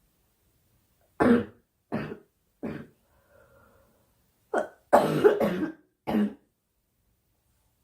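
A girl coughing in two fits: three separate coughs about a second in, then after a faint breath a quicker run of several coughs about four and a half seconds in.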